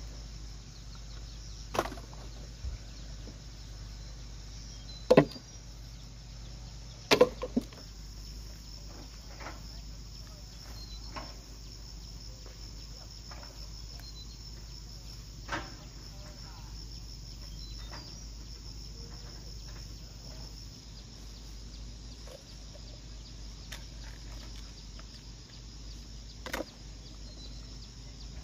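Steady high-pitched chorus of insects such as crickets, with a few sharp knocks scattered through it, the loudest about five and seven seconds in.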